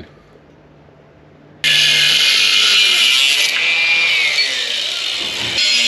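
Angle grinder running on metal, starting abruptly about a second and a half in with a loud, high hiss. A falling whine runs through the middle, and the sound changes sharply near the end.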